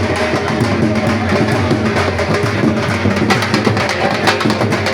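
Music with fast, steady drumming and other percussion.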